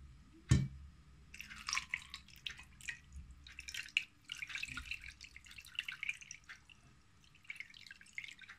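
Cooled brine poured from a stainless steel pot into a glass baking dish, splashing and trickling for several seconds, then thinning to scattered drips near the end. A single knock about half a second in.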